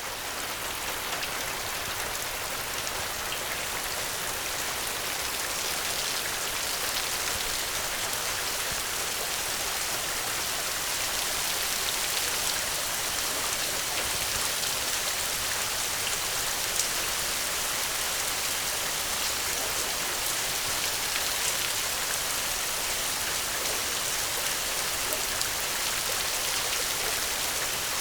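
Steady heavy rain: a dense, even hiss of rain on surfaces with scattered individual drop ticks, swelling slightly over the first couple of seconds.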